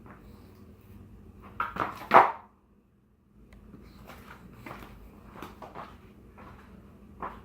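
Hugger ceiling fan motor humming steadily, with a few loud clicks and knocks about two seconds in. The sound cuts out for about a second, then light irregular ticking and clicking runs on over the hum.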